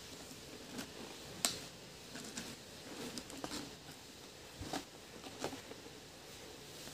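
Pringles potato crisps crunched while eating, with a hand reaching into the cardboard Pringles tube: scattered sharp crunches and clicks, the sharpest about a second and a half in.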